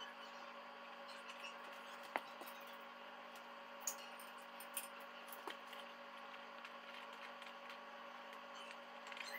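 Faint kitchen sounds: a steady low hum under a few light clicks and knocks from items handled on the counter, the sharpest about two seconds in.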